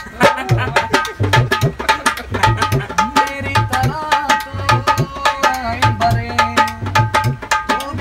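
A dholak played by hand in a quick rhythm, mixing deep bass strokes with sharp slaps, while a man sings over it in long, gliding phrases.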